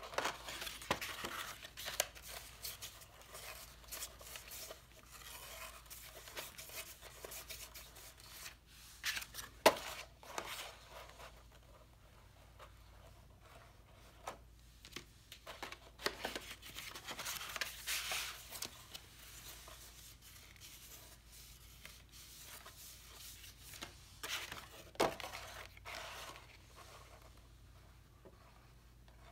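Cardstock being handled as glued tabs are pressed down: irregular rustling, rubbing and scraping of stiff paper, with a few sharp taps, the loudest about ten seconds in.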